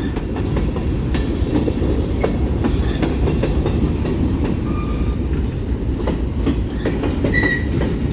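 Freight train cars rolling past close by: a steady rumble of steel wheels on the rails with scattered clacks, and two brief high squeals, about halfway through and near the end.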